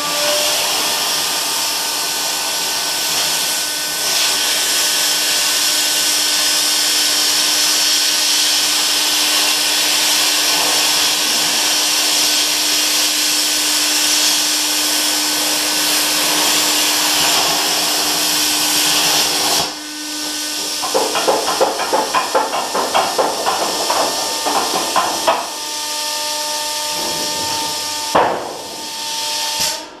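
Plasma cutter cutting steel: a loud, steady hiss of arc and compressed air with a steady howl from the air regulator underneath, for about twenty seconds before it cuts off suddenly. After that comes a fast run of metal knocks and rattles, and a single thump near the end.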